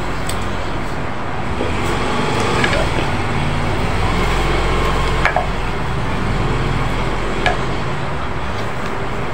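Steady rumbling background noise, with a few short clicks from eating grilled chicken by hand.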